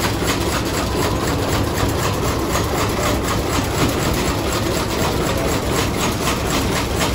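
Large Bessemer stationary oil engine running steadily with a regular beat.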